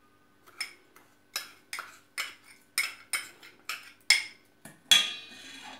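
Metal spoon clinking against a small glass cup, knocking white sugar out into a stainless steel mixing bowl: a run of sharp clinks, two or three a second, the loudest about five seconds in with a brief ring.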